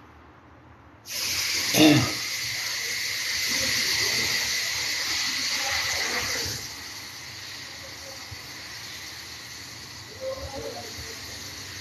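A steady hiss that starts abruptly about a second in, with a brief knock just after it begins; it holds loud for about five seconds, then drops to a lower, steady level.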